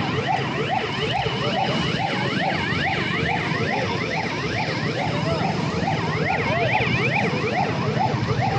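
A siren yelping in a fast, repeating up-and-down wail, about two to three sweeps a second, over the steady rush of fast-flowing floodwater.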